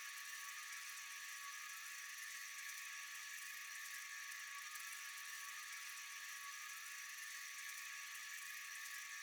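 Steady high-pitched chorus of night insects: a constant hissing drone with a few held tones in it.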